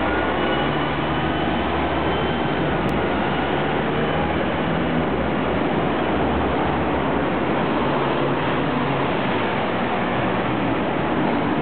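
Dense city street traffic: double-decker buses and cars passing, a steady mix of engine hum and road noise. A faint high whine drifts in pitch during the first few seconds.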